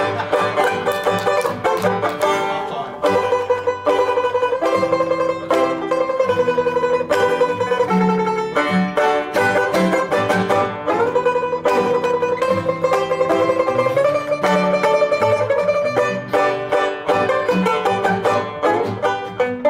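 Four-string resonator banjo played with a pick: quick melodic runs and long tremolo-picked held notes, with an archtop guitar strumming chords underneath.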